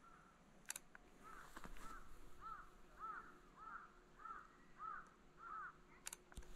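A crow calling faintly in a run of about eight short caws, each rising and falling in pitch, roughly two a second. There is a sharp click just before the calls begin and another after they end.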